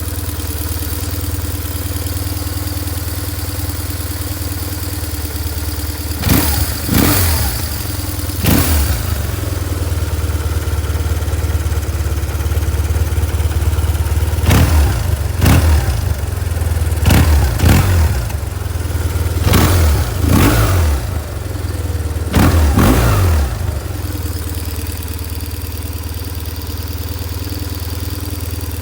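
BMW R1150R air-cooled boxer twin on its stock exhaust, idling steadily, then given a series of short, sharp throttle blips through the middle before settling back to idle.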